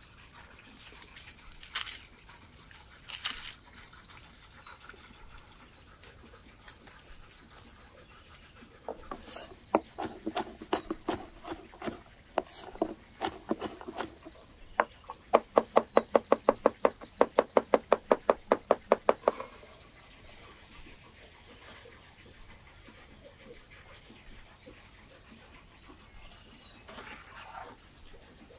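A large kitchen knife rapidly chopping garlic cloves on a wooden cutting board, a fast even run of about eight strokes a second lasting about four seconds past the middle, after scattered irregular cuts. Earlier, dry papery garlic bulbs crackle twice as a head is pulled from a hanging braid, and small birds chirp faintly throughout.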